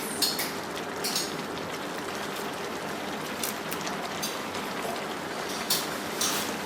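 Food sizzling in a frying pan, a steady hiss with irregular crackles and the odd sharper tick from a spatula or spattering oil.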